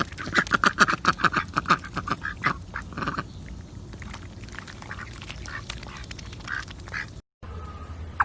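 An animal's rapid run of short, repeated calls, several a second for about three seconds, then scattered single calls.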